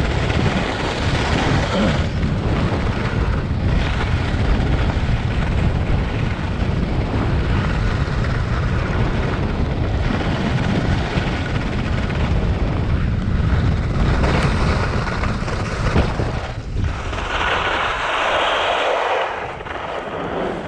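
Wind buffeting the microphone of a skier's point-of-view camera during a fast run, with skis hissing over the groomed snow. Near the end the wind drops away and the skis scrape briefly as the skier slows to a stop.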